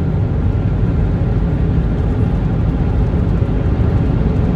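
Steady engine and road rumble of a moving vehicle, heard from inside the cab.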